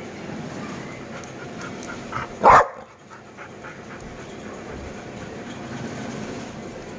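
Labrador retriever panting, with one short, loud bark about two and a half seconds in.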